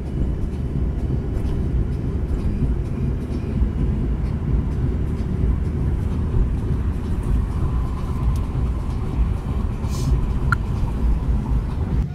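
Road noise inside a moving car's cabin at motorway speed: a steady, even rush of tyres and engine.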